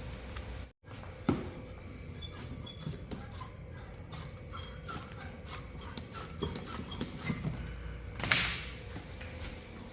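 Scattered light clicks and knocks of tools and equipment being handled, over a steady low hum, with a short louder scrape about eight seconds in.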